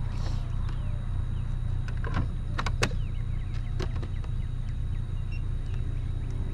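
A vehicle engine idling with a steady low hum, with a few sharp clicks and knocks between about two and four seconds in as gear is handled in the boat.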